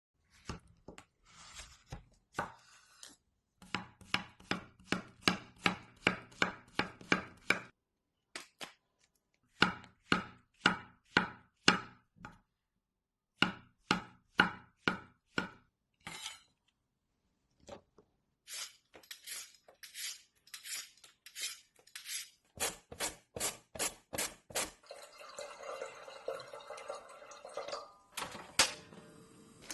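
Kitchen knife chopping ingredients on a cutting board: runs of quick, even strokes, about three a second, broken by short pauses. Near the end the strokes give way to a denser crackling.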